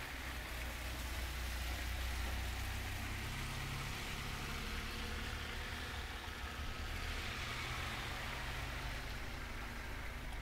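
Snowstorm wind buffeting the camera's built-in microphone: a steady low rumble under an even hiss.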